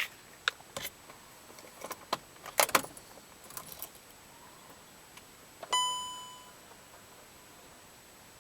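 Car keys jangling and clicking for the first few seconds, then a single dashboard chime about six seconds in that rings and fades out over about a second. No engine cranking or running is heard; the car will not start.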